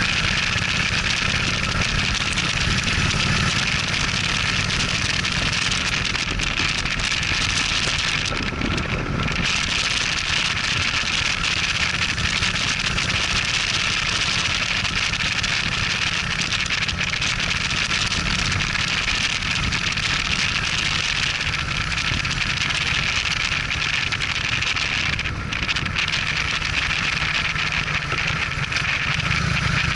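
Cruiser motorcycle riding at a steady road speed: its engine runs low and constant under a continuous rush of wind noise on the microphone.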